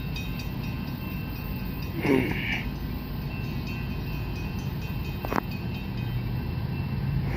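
Steady low rumble of a CSX freight train and its diesel locomotive, with a low engine drone coming in about six seconds in. A short higher-pitched sound comes about two seconds in, and a sharp click about five seconds in.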